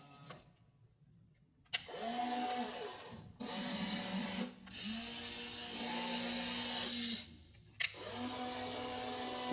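Small electric gear motors of a WLtoys RC toy excavator whining in bursts. The whine starts with a click about two seconds in, drops out briefly a few times, and starts again with another click near the end.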